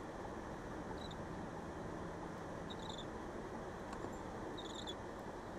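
Steady road and tyre noise heard inside a moving car, with a few faint, short high-pitched chirps or squeaks: one about a second in, one near the middle and a double one near the end.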